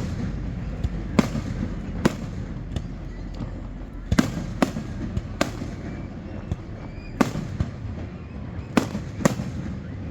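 Aerial fireworks display: about ten sharp bangs at irregular intervals, some close together, over a steady low background rumble.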